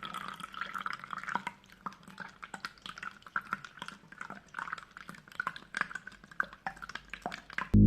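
Small water fountain running: water dripping and splashing in quick, irregular drops. Loud electronic music cuts in near the end.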